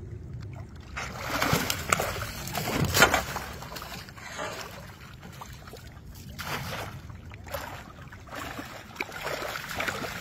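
Catfish crowded in a net thrashing at the surface, splashing and churning the water in irregular bursts, the biggest about three seconds in, over a steady low rumble.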